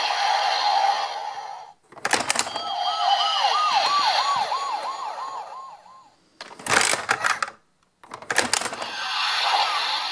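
Paw Patrol Spiral Rescue Jet toy transforming with its electronic sound effects: several bursts of noisy whooshing with clicks, broken by short gaps, and a warbling siren-like tone from about two to five seconds in.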